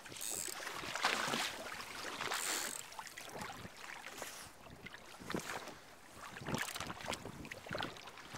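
Small choppy waves lapping and slapping against the side of a small boat, with wind on the microphone and a few light knocks.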